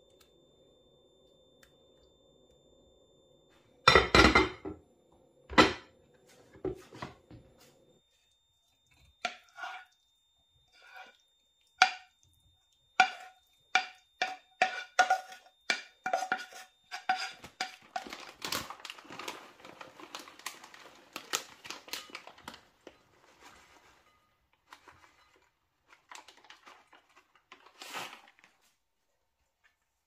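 A wooden spatula taps and scrapes cooked minced meat out of a nonstick frying pan into a glass bowl, with repeated ringing knocks of the pan and a spell of dense scraping clatter. A couple of loud knocks come a few seconds in.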